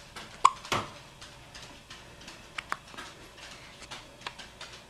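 A four-day-old newborn hiccupping: two short, sharp hiccups close together about half a second in, then only faint little clicks.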